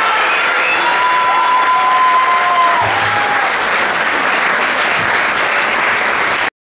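Audience applauding at the close of a dance performance, with a few drawn-out cries over the clapping; the sound cuts off suddenly near the end.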